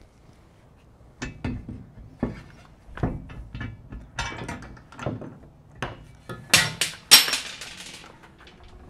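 Scattered metal clicks and knocks as a bolted-on steel door carrier is handled during removal, with two short, loud bursts from a cordless impact driver about two-thirds of the way through, backing out the mounting bolts.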